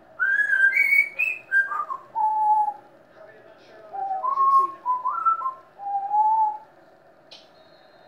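Pet parrot whistling two short phrases of clear notes that step and glide up and down in pitch, with a pause of about a second between them.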